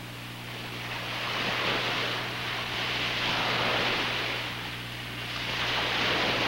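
Ocean surf washing in, swelling and easing off twice, over a steady low hum.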